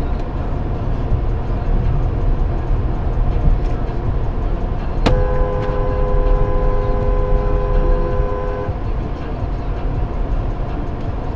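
Car horn held for about three and a half seconds, two notes sounding together, over the steady rumble of the car driving; a warning honk at a vehicle pulling out in front.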